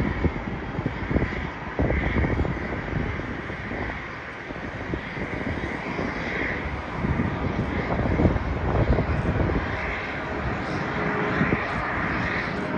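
Jet airliner engines running steadily, with wind buffeting the microphone in irregular low gusts.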